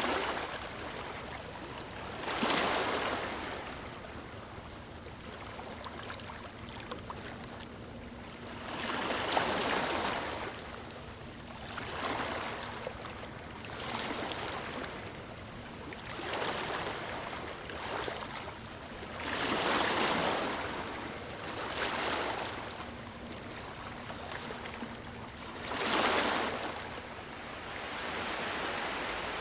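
Sea waves breaking on a shore: a steady wash of surf, with a wave surging up and falling away every few seconds.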